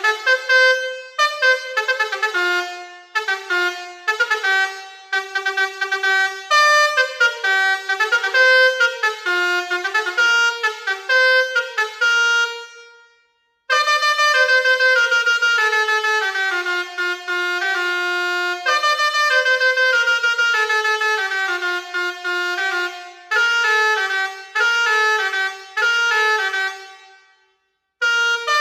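Basuri V4 21-tone "telolet" musical air horn playing melodies as a run of short, brassy horn notes stepping up and down in pitch. One tune fades out about 13 seconds in, and after a second's pause a second tune starts. That tune stops briefly just before the end.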